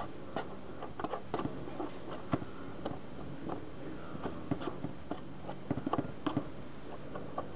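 Irregular scratching and clicking as caked dead grass clippings are scraped and picked off the underside of a lawnmower deck.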